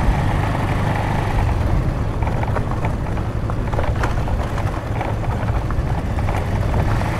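Bajaj Avenger Street 150 motorcycle engine running steadily under way, with road noise and a few light clicks in the middle.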